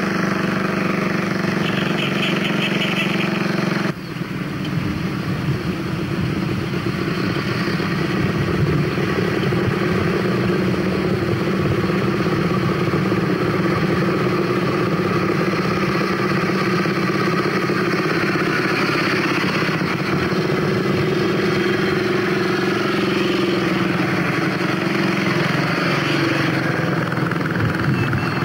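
Vintage motorcycles running as they ride past along a road, the engine note rising and falling. The sound changes abruptly about four seconds in.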